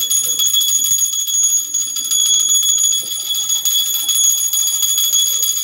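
Small brass puja hand bell rung continuously, its clapper striking rapidly for a steady, high, bright ringing, as is done while offering bhog to the deity.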